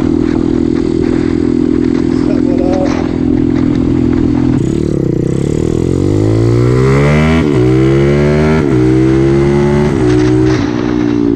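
Small single-cylinder four-stroke pit bike engine under way. It holds a steady speed for the first few seconds, then accelerates with the pitch climbing, shifts up twice in quick succession and eases off near the end. Wind buffets the microphone throughout.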